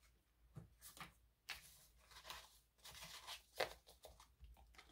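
Faint rustling of paper bills being handled and squared into a binder pocket, in several short scuffs.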